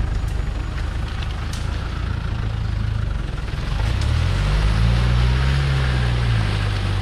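Land Rover Defender's engine revving up about four seconds in as it drives through a muddy, water-filled rut, holding the revs, then easing off near the end. Tyres churn and splash through mud and water beneath it.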